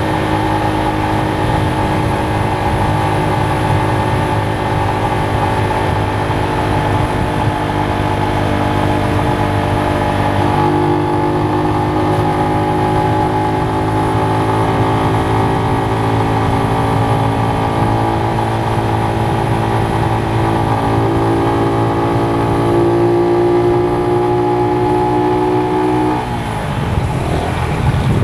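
A motor vehicle's engine running steadily at a constant pitch, its tone dipping and then rising again near the end.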